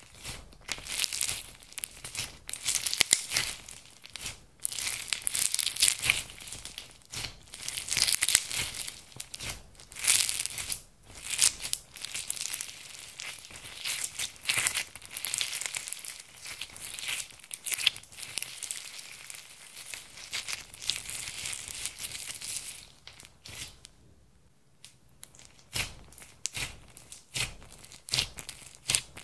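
Hands squeezing, stretching and poking a thick glitter-and-bead slime: dense, irregular sticky crackles and small pops. There is a quieter pause about three-quarters of the way through.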